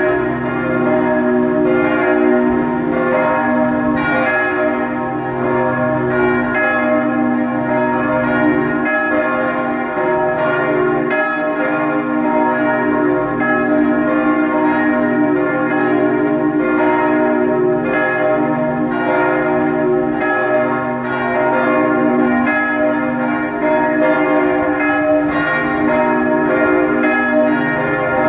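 A peal of several church bells ringing together, their strikes overlapping in a dense, continuous clangour with a steady hum of sustained tones beneath.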